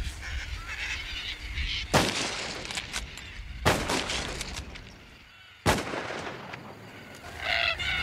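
Three sharp, loud bangs like gunshots, each ringing on briefly, about two seconds apart, amid harsh screeching cockatoo calls.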